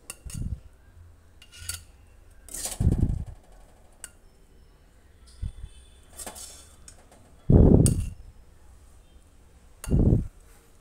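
Steel spatula scraping and knocking in an aluminium kadhai as cooked food is scooped into a glass bowl: four dull thuds, the loudest about eight seconds in, between light clicks and clinks.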